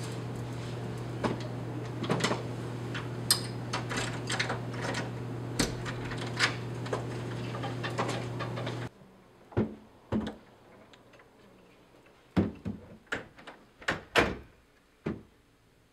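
A steady low hum with scattered light clicks and taps. About nine seconds in the hum cuts off suddenly, and a string of sharp knocks and clicks follows: a hotel room door being unlocked, opened and shut.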